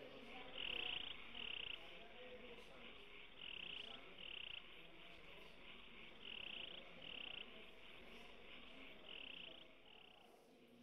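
Rhythmic high chirping: two short chirps close together, repeating about every three seconds, over a steady high hiss and a faint low murmur.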